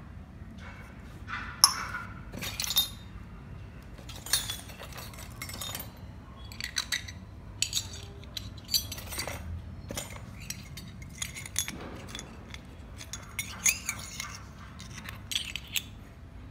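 Miniature toy kitchenware clinking as the small pieces are handled and set down: irregular light clinks about once a second, some ringing briefly.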